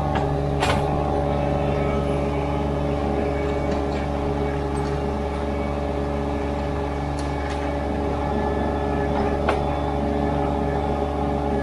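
Mini skid steer engine running steadily at a constant speed, with a sharp knock about a second in and another near the end.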